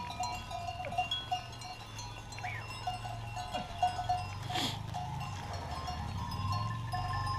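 Bells on a herd of goats clinking and jangling continuously as the animals move along, with a short hiss a little past halfway through.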